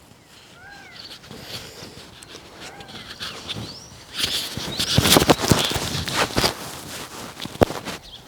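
Birds calling outdoors in a few short arched notes, then from about four seconds in loud rustling and scraping as a furry windscreen is worked onto a Rode Wireless GO II clip-on transmitter, rubbing straight on its built-in mic.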